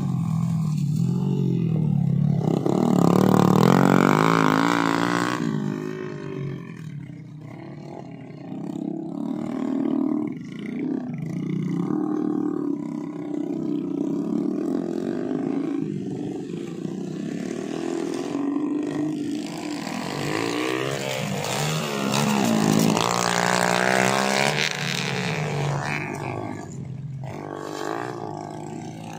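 Small motorcycle engines of homemade trail bikes running and revving up and down as they ride across a rice field, some laden with sacks of unhusked rice. Loudest a few seconds in and again about three-quarters of the way through.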